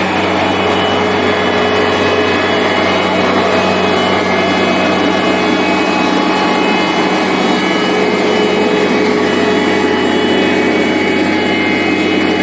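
Road-construction machinery running steadily: a constant engine drone with a steady hum under a dense mechanical noise.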